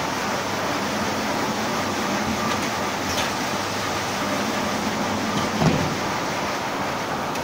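Sleeve shrink wrapping machine running: a steady mechanical whir with a faint low hum, a few light ticks, and one low thump a little before the end.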